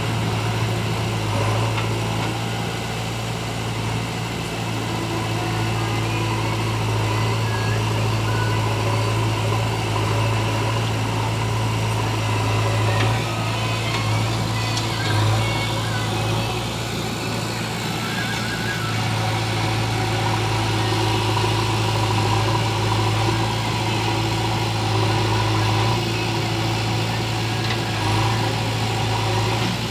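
JCB 3DX backhoe loader's diesel engine running steadily as the backhoe digs and loads soil, a continuous low hum with little change in level.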